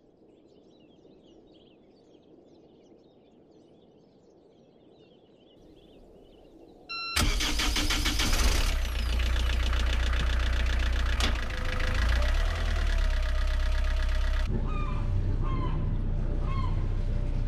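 Faint high chirps, then about seven seconds in a short beep and a sailboat's inboard diesel engine starting with a sudden jump to a steady rhythmic run. Near the end the engine runs on under repeated higher-pitched calls.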